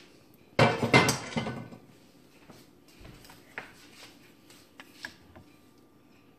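Clatter of a cooking pan and utensils being handled: a burst of knocking and rattling about half a second in that lasts about a second, then a few light taps and clicks.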